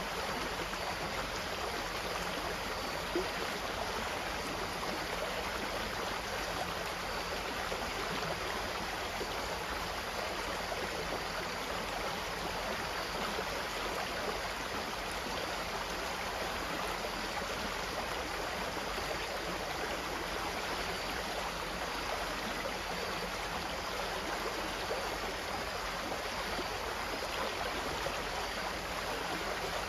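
Water flowing steadily, a continuous even rush like a stream.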